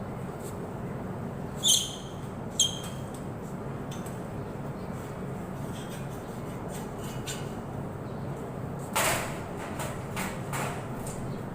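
Vehicle brakes squealing: two short, high-pitched squeals about a second apart, over the steady low hum of the running engine. A short rushing noise follows near the end.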